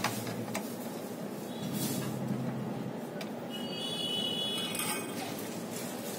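Wires and small plastic connectors being handled inside a metal instrument housing: a few faint clicks over a steady background rumble. A brief high tone is heard from about three and a half to five seconds in.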